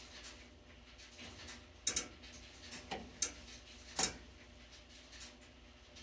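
Four sharp metallic clicks of the wire strippers' tips against the gas furnace's low-voltage terminal screws: one about two seconds in, two close together around three seconds, and one at four seconds. A steady low hum from the running furnace lies underneath.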